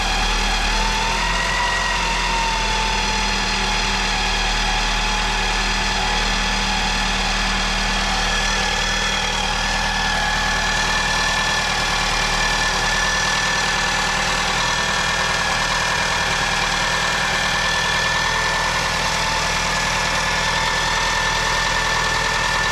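1999 Toyota Camry's 2.2-litre four-cylinder engine idling steadily just after start-up, its new timing belt running in with the timing covers off and no alternator belt fitted. The idle eases down slightly in the first couple of seconds, with a steady whine above the engine note.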